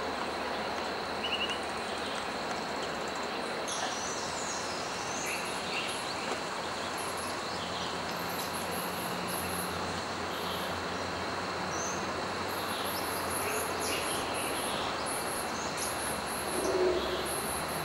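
Forest ambience: a steady insect drone under an even hiss, with runs of short, very high-pitched chirps and a few lower bird-like notes.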